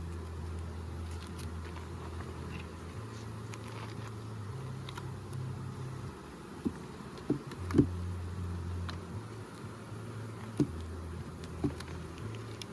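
Honeybees buzzing around an open hive, a steady low hum that wavers in pitch as bees fly near. A few sharp clicks and knocks come in the second half, the loudest about eight seconds in.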